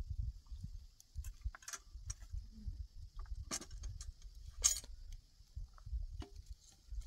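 Low, uneven rumble of wind on the microphone with a faint steady hiss, broken by a few sharp clicks and knocks, the loudest about three and a half and four and a half seconds in.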